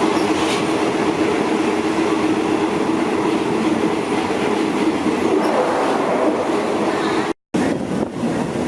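Diesel passenger train running along the tracks: a loud, steady rumble with a droning hum. The sound breaks off for an instant near the end, then carries on.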